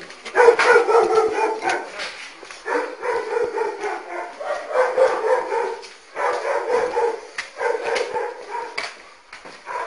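A dog whining and howling in a string of drawn-out, pitched cries, each a second or so long with short breaks between.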